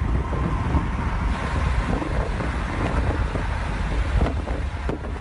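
Steady road noise from a moving car, with wind buffeting the phone's microphone.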